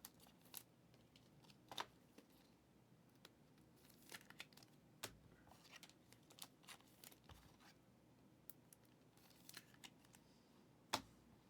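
Faint handling of glossy trading cards: soft rustles, slides and clicks as cards are flipped through, with one sharper click near the end.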